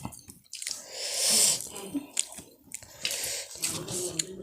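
Close mouth sounds of eating: chewing with wet clicks and loud, noisy breaths, the loudest swelling about a second in.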